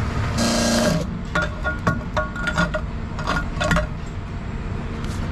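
Several light metallic clinks, some ringing briefly, over a steady low rumble.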